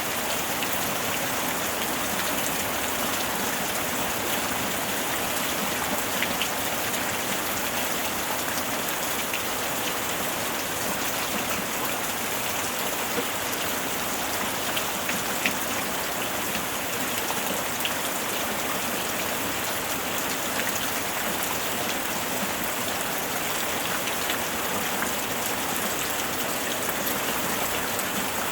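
Steady gentle rain, an even hiss of rainfall with occasional individual drops ticking on a surface.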